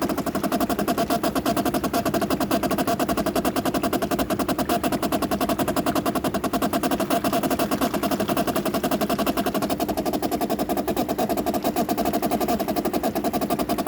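Water inlet valve of a 2008 Bosch dishwasher buzzing with a rapid, steady chatter as water flows in, the valve body visibly shaking. The owner takes it for a failing inlet valve that keeps letting water in and made the machine overflow.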